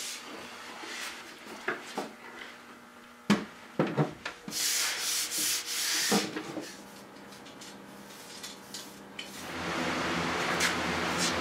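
A few sharp wooden knocks as a small wooden table is handled and set down, then scratchy hand-sanding on its wooden top for a couple of seconds. Near the end a softer, steady rubbing as finish is wiped onto the top.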